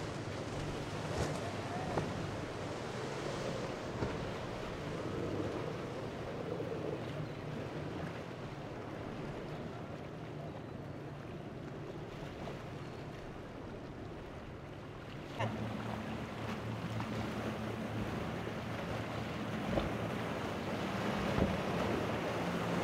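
Outboard boat engines running through rough inlet water, mixed with the rush of waves and wind. About two-thirds of the way through, a steadier, louder engine drone cuts in.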